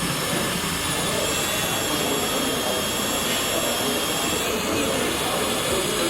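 Steady mechanical din with several high-pitched steady whines over a dense noise bed, typical of electric RC model trucks and construction machines running.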